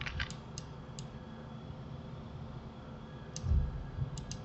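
Scattered clicks of a computer keyboard and mouse, several in the first second and a couple more near the end, with a soft low thump a little past the middle.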